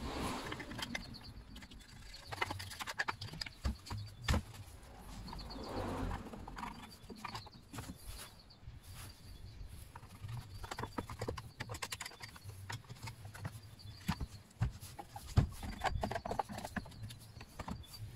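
Irregular clicks, knocks and scraping from a pointed hand tool and hands working on the plastic and metal casing of a stopped Stihl MS 231 C chainsaw, picking caked sawdust and oily grime out from around the clutch.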